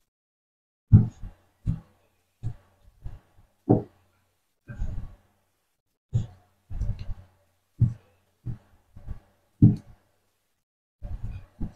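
Knife tip stabbing repeatedly into a skinned chicken drumstick and knocking on the wooden cutting board beneath: a string of short, dull thuds at uneven intervals, about one or two a second, some in quick clusters.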